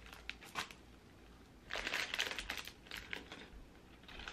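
Clear plastic bag crinkling as hands rummage in it among small plastic pieces, in a few bursts, the longest about two seconds in.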